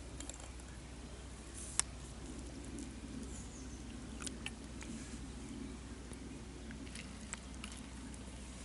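Quiet handling sounds of a camp breakfast: a few sharp clicks and small knocks of a spoon, a plastic bowl and a plastic water bottle, over a faint steady low hum.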